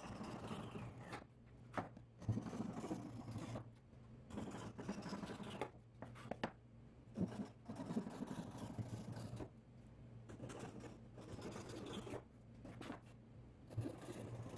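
Flush-cut pull saw trimming protruding walnut corner keys flush with the sides of a mitred wooden box. It makes a series of short rasping strokes in uneven bursts, with brief pauses and a few sharp clicks between cuts.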